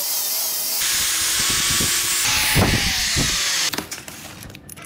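Angle grinder grinding the end of a steel pipe: a steady, loud high hiss that stops a little under four seconds in, followed by a few light clicks.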